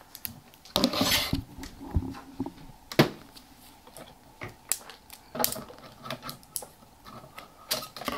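Plastic play-kitchen toys being handled: scattered light clicks, taps and clatters, with a brief rustle about a second in and a sharper knock about three seconds in.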